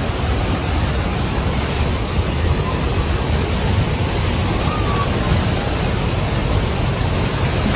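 Flash-flood torrent: a steady, loud roar of rushing water, heaviest in the low rumble.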